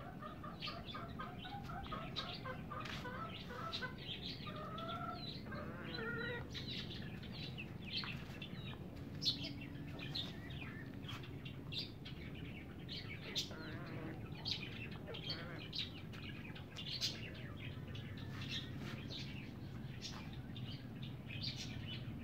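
Domestic hens clucking in the first few seconds, with short, sharp, high chirps repeating throughout.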